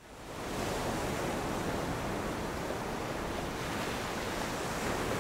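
Ocean surf washing onto a sandy beach, fading in at the start and then holding as a steady rush, with wind rumbling on the microphone.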